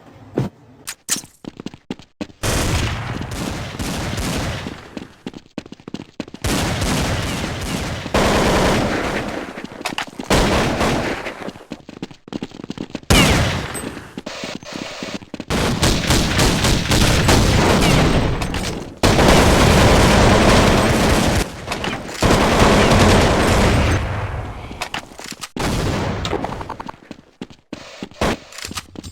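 A string of long, rattling farts, one after another, each lasting a few seconds, after a few short sharp pops in the first two seconds.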